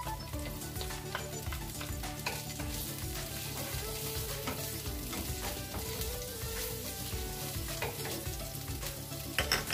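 Minced garlic sizzling in hot oil in a nonstick frying pan, stirred with a wooden spatula.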